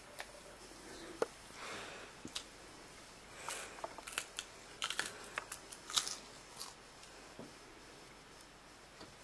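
Quiet rustling of bedding and fabric, with a flurry of small sharp clicks and crinkles from about three to seven seconds in.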